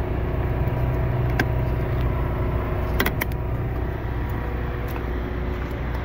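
Motorhome's onboard generator running with a steady hum. A few light clicks come about a second and a half in and twice around three seconds in.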